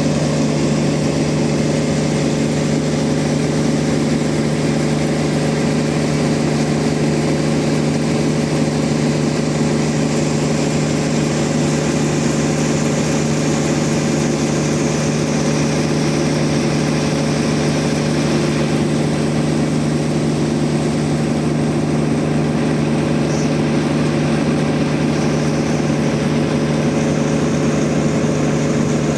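Band sawmill running: a steady, unchanging machine hum throughout, with no rise or fall in pitch.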